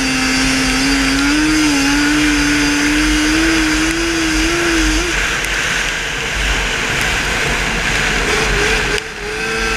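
Yamaha racing quad's engine running at high, nearly steady revs through a dirt-track corner, then pulling to a higher note near the end, with a brief drop in level about nine seconds in.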